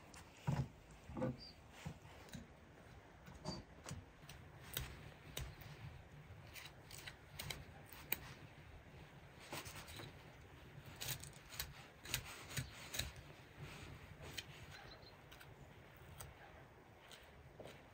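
Faint, irregular small clicks and snips, as of hand work with a cutting tool, over a low steady hum.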